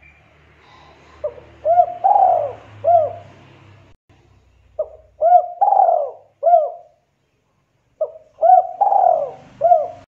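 A dove cooing in three phrases, each a run of about four coos in which the third coo is the longest and loudest. A faint low hum sits under the first phrase.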